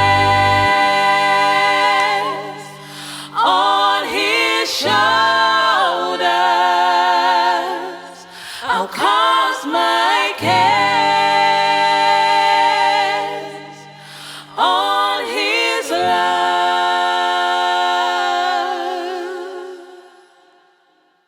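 Gospel choir singing slow, held phrases with vibrato over steady low sustained notes, a beat dropping out just after the start. The music fades away to silence near the end.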